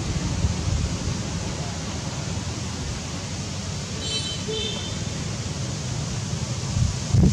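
Wind buffeting the microphone, a gusty low rumble over a steady outdoor hiss, with a short faint high tone about four seconds in and a stronger gust near the end.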